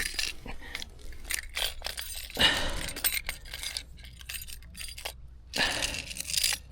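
Handling noise: scattered light clicks and clinks with two louder rustles, about two seconds in and near the end.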